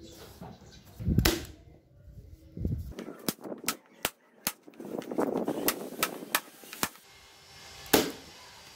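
Corded electric brad nailer firing brads into a wooden frame: a quick series of sharp shots, then one loud shot near the end. A thump about a second in.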